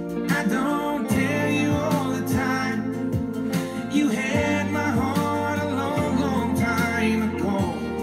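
Country-style song with singing, guitar and a steady kick-drum beat, playing loud from a golf cart sound bar of four JL Audio 7.7-inch LED speakers driven by a 280/4 amplifier.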